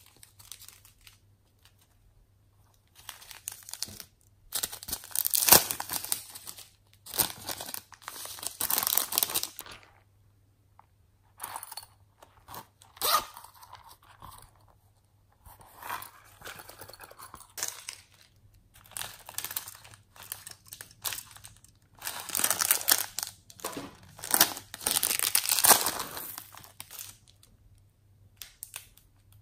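Plastic packaging crinkling and tearing as hands open packets, in a run of short bursts with brief pauses between them.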